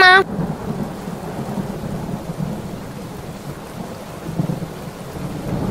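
Steady rain with low rumbles of thunder, slightly louder about four and a half seconds in.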